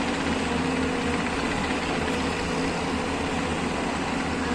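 Demolition excavator's diesel engine running steadily at a low, even pitch, with no knocks or impacts.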